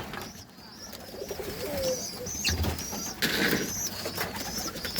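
Pigeons cooing softly in a loft, with repeated faint high chirps and a brief rustle about three seconds in.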